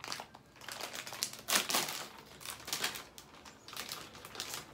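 Lay's potato chip bag crinkling in irregular rustles as it is handled and a hand reaches in for chips. The loudest rustle comes about a second and a half in.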